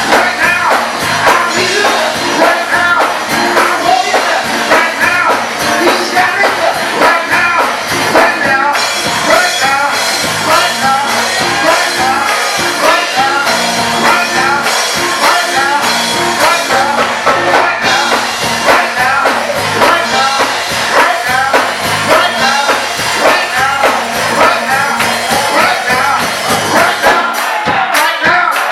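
Gospel choir singing with band accompaniment, with a steady beat throughout.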